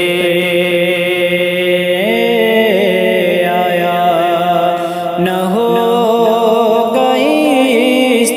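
A man's voice singing a manqabat, a devotional Urdu poem, in long held notes that step up and down in pitch.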